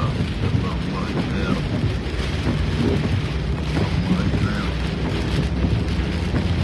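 Inside a moving car's cabin in heavy rain: a steady rush of rain on the car and tyres on the wet road over the low, even hum of the engine.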